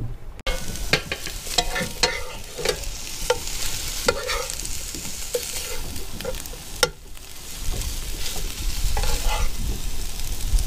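Lobster chunks sizzling in garlic butter in a nonstick skillet, stirred with a plastic spoon that scrapes and clicks against the pan.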